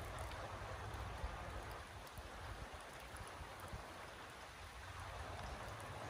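Steady rain falling: an even hiss with scattered faint drop ticks and a low rumble underneath.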